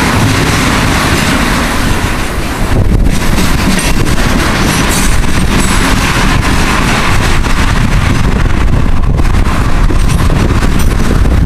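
Tank cars of a freight ethanol train rolling past, their wheels clattering steadily over the rail joints and a railroad diamond crossing.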